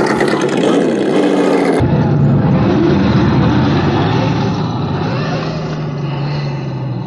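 Radio-controlled off-road buggy driving fast over loose dirt, its motor revving up and down.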